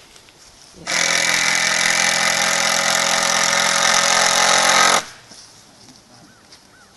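Cordless power drill running steadily for about four seconds, driving a screw into the wooden door frame; it starts suddenly about a second in and cuts off sharply.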